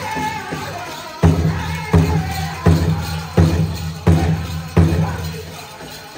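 Powwow drum group's chicken-dance song: the high sung line tails off, then the big drum comes in with six heavy, evenly spaced beats, about 0.7 s apart, that fade near the end. The dancers' bells jingle over it.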